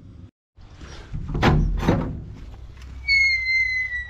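A metal farm gate being opened: two loud thunks, then about three seconds in a high squeal that lasts about a second and falls slightly in pitch.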